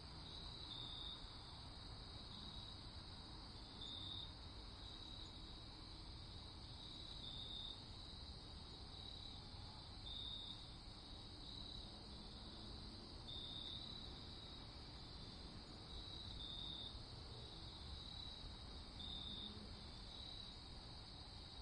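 Faint steady background noise: a high-pitched trill that keeps on, brightening in short pulses about once a second or so, over a low rumble.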